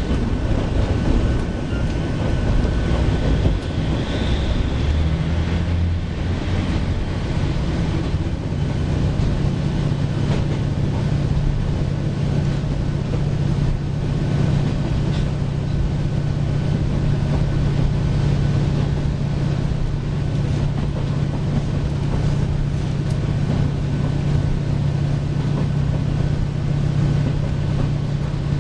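Inside a JR Shikoku KiHa 40 series diesel railcar under way: the diesel engine's steady drone over rolling track noise. The engine note shifts about five seconds in, then holds steady.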